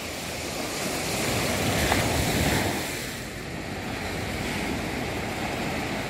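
Small sea waves breaking and washing up a sandy beach, swelling about two seconds in and easing off a little after three.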